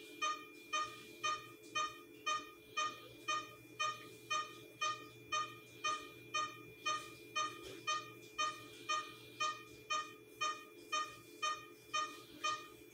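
Patient monitor on an anaesthetised dog beeping steadily, a short tone about twice a second that tracks the heartbeat, over a steady low hum.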